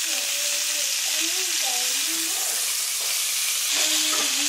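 Wood duck searing in hot bacon grease in a frying pan: a steady loud sizzle.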